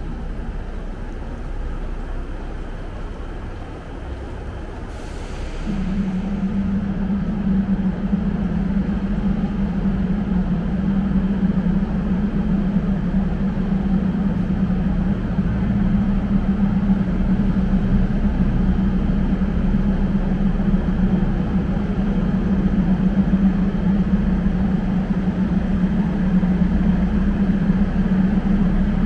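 Diesel train engine running steadily with a low drone that sets in about six seconds in, just after a short hiss.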